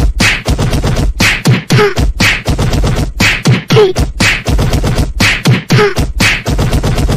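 A dubbed rhythmic beatbox-style track: sharp percussive hits at about two a second, with short falling-pitch blips between them.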